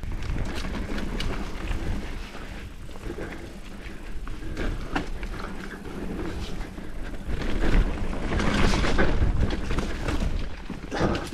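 Mountain bike riding a dirt trail: wind rumbling on the microphone, tyres on dirt and the bike clattering over bumps, loudest in the second half.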